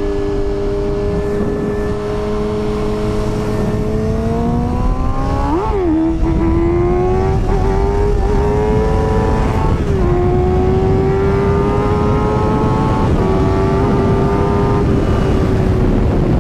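Sport motorcycle engine under way with wind rushing past: steady at first, then revving up through the gears, with a quick blip about six seconds in and a drop in pitch at about ten seconds as it shifts, then climbing again.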